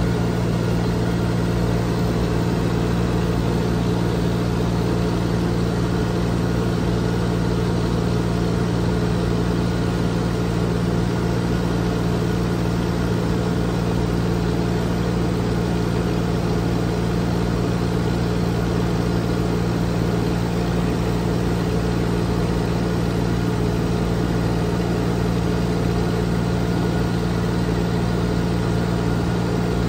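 Light aircraft engine and propeller drone heard inside the cabin in steady level flight: a constant, unchanging hum with strong low tones.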